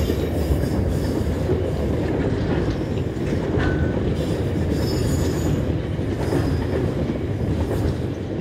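SCT Logistics freight train rolling past: a steady rumble and clatter of steel wheels on the rails, with faint, intermittent wheel squeal.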